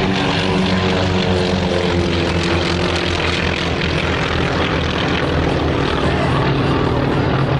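Piston engines of two single-engine propeller warbirds flying past in formation: a loud, steady propeller drone whose pitch falls slightly in the first few seconds as they go by.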